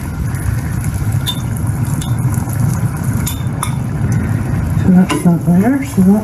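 A fork clinking a few times against a glass jar and a pan as fermented tomatoes are lifted from the jar into a pork ragu, over a steady low sizzle from the pan.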